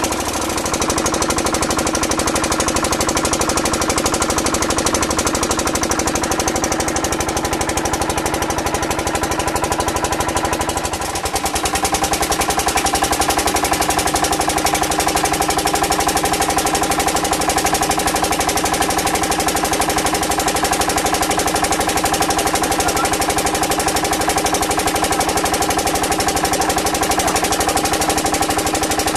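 Boat engine running steadily with a rapid, even beat. Its note shifts after a brief dip about eleven seconds in.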